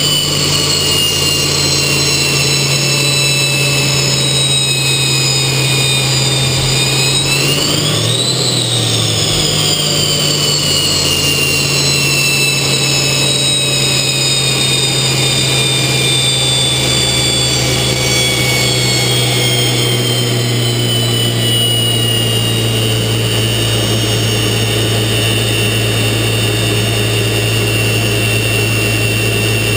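TA-4J Skyhawk's Pratt & Whitney J52 turbojet heard from inside the closed cockpit: a steady loud whine, with several high tones drifting slowly in pitch and two of them crossing about eight seconds in, over a low steady hum.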